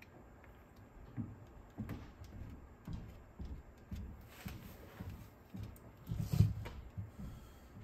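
Small clicks, taps and light knocks of hands and tools working on a cassette deck's tape transport mechanism, with brief rustles and a louder knock about six and a half seconds in.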